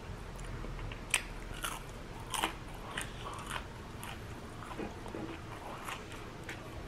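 Close-up crunching of a crispy battered fried prawn being bitten and chewed: a run of sharp, irregular crunches, the sharpest about a second in.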